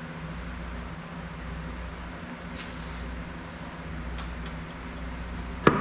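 Steady hum of a room air conditioner, with a few faint clicks and then one loud metallic clunk near the end as a torque converter is worked onto a Turbo 400 transmission's input shaft. The clunk is not the converter seating a further step, which it still needs.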